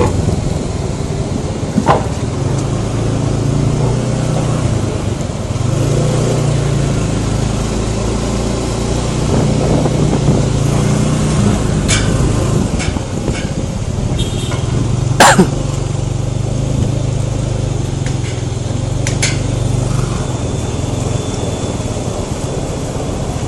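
Honda Scoopy scooter riding through traffic, heard from a phone stuck to the rider's helmet: a steady engine hum that rises and falls with wind rushing over the microphone. A few sharp knocks, the loudest about fifteen seconds in.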